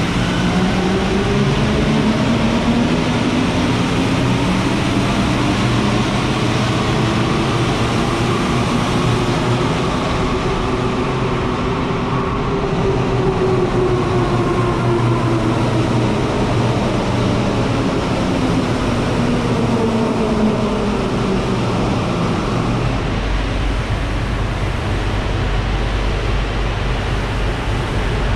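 Rubber-tyred Santiago Metro Line 1 train running, its traction motors whining over a steady rumble. The whine climbs in pitch as the train accelerates, levels off about halfway, then falls again as it slows. Near the end the low rumble grows heavier.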